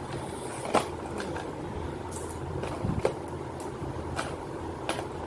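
Jewellery and jewellery boxes being handled: a string of light clicks and knocks, about eight in five seconds, over a steady background hum.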